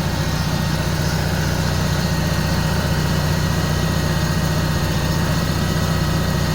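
Onan RV generator engine running steadily just after a cold start.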